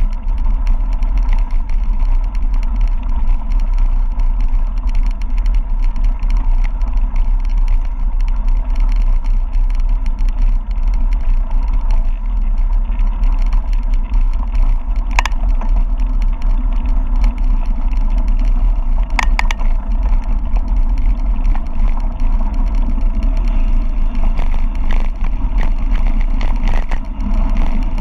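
Wind buffeting the camera microphone on a fast mountain-bike descent: a loud, steady low rumble, with a couple of short sharp knocks from the bike a little past the middle.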